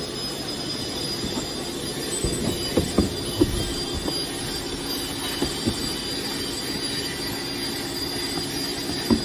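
Steady machine hum with a constant high-pitched whine, as from running workshop machinery. Several short knocks come about two to three and a half seconds in and again near six seconds, as cardboard boxes and parts are handled.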